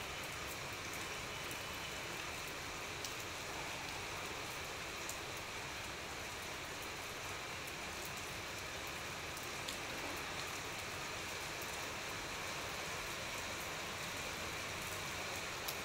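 Steady rain falling on a tiled terrace: an even hiss, with now and then a sharper drop tick.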